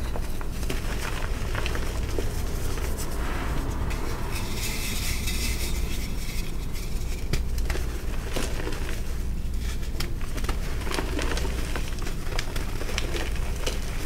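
Hands crushing and squeezing powdery reformed gym chalk: soft crunching and crumbling with many small crackles, and a stretch of hissy powder rubbing from about four to seven seconds in. A steady low hum runs underneath.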